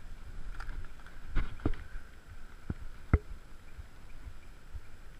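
Several short, sharp knocks and thumps over a low rumble, the loudest one about three seconds in.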